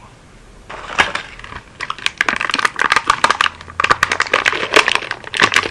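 Toy packaging crackling and crinkling as it is handled, a dense run of sharp clicks and crackles starting under a second in.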